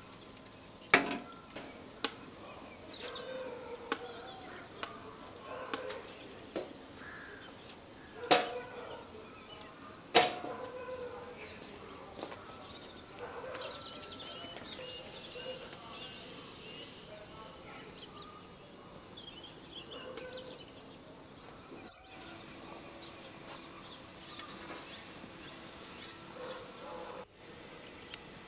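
A few sharp metal clanks, the first as the steel doors of a brick oven are swung shut. Small birds chirp now and then.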